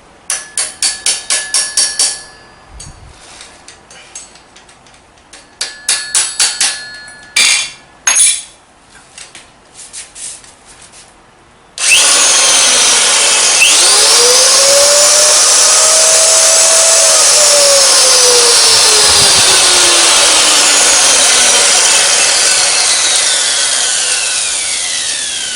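Ryu RED16RE mixer drill on a power test: the motor starts suddenly about halfway through, runs up to speed and runs loud, then slowly winds down as it coasts near the end. Before it starts, quick runs of sharp clicks and knocks come from work on the tool.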